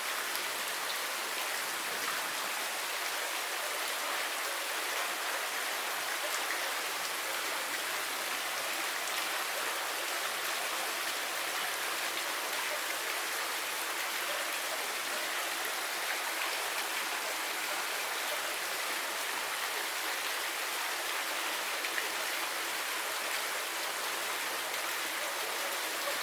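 Steady running water, an even splashing hiss with no breaks.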